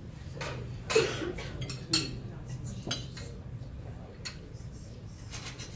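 Scattered clinks and knocks of small hard objects, the sharpest about one, two and three seconds in and a quick cluster near the end, over a steady low room hum.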